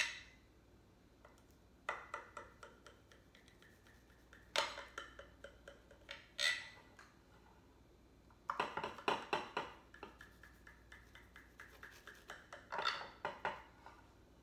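A knife cutting through baked crescent-dough bars with a cinnamon-sugar crust. It comes in about six short bouts of crisp scraping and clicking as the blade meets the surface beneath, with quiet pauses between the cuts.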